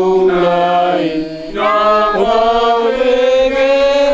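A group of people singing a hymn together in the Batak language, holding long, slow notes, with a brief pause for breath about a second in.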